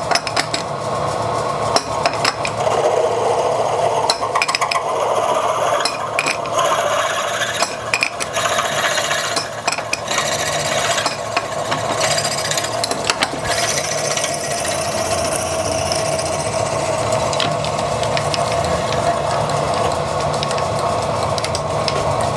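Milling machine spindle turning a thread-repair-kit drill as it cuts into a steel casting, fed slowly: a steady machine tone with irregular scraping and ticking from the bit, busiest in the first half and steadier later on. The drill is opening out a damaged 7/16 BSF hole to take a thread insert.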